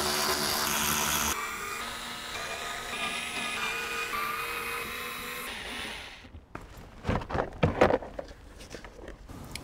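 Cordless screwdriver running for about six seconds as it undoes the screws of a plastic car underbody tray, its motor tone shifting in steps. Then, near the end, scattered knocks and rustles as the loosened plastic tray is pulled down by hand.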